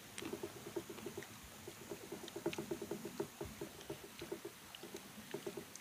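Low pulsed animal calls, about nine pulses a second in runs broken by short pauses, with a few faint scattered clicks.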